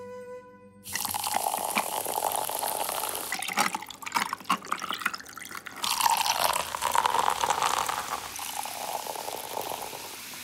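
Sparkling water poured from a plastic bottle into a tall glass of ice, splashing and fizzing. There are several sharp clicks about halfway through, and the fizz fades near the end.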